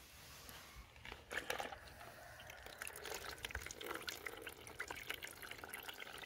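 Liquid dripping and splashing from a handful of small raw fish as they are lifted out of a plastic bowl and held over it, with many small drips falling back into the bowl. It starts about a second in.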